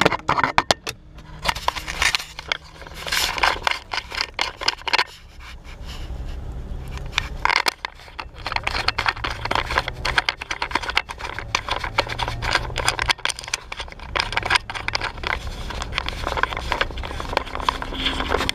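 Handling noise from an action camera gripped in a hand: irregular scraping and crackling as the casing rubs against skin and clothing. A car engine runs low and steady underneath.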